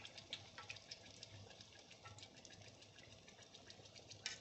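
Faint, irregular crackling and popping of battered catfish deep-frying in hot oil.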